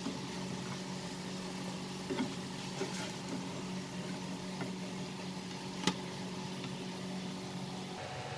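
Bread pieces sizzling as they fry in the pan, a steady hiss with a few light clicks of a utensil and one sharper click about six seconds in.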